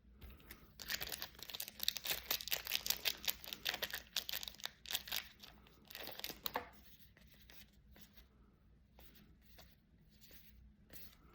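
A trading card pack's wrapper being torn open and crinkled by hand for several seconds, ending about two-thirds of the way through, followed by faint handling clicks as the cards are shuffled.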